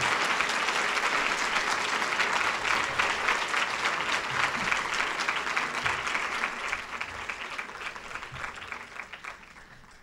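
Audience applauding, a dense patter of many hands that thins out over the last few seconds and dies away.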